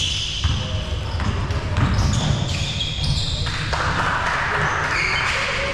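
Sounds of a basketball game in progress: a ball bouncing on the court, with players' voices and shuffling feet.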